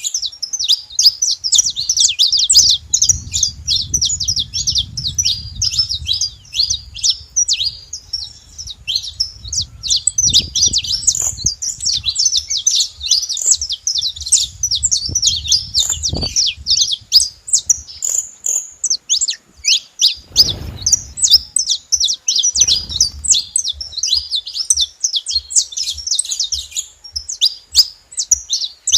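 A group of saffron finches chirping together: a dense, unbroken chatter of quick, high, overlapping chirps from several birds at once.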